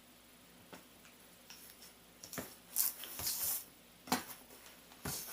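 Handling noise from a cardboard product box being turned over: a few scattered light knocks and clicks, with a brief rustle about three seconds in.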